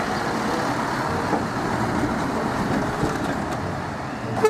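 Scania truck with trailers driving past on a road: steady engine and tyre noise, with a short horn toot near the end.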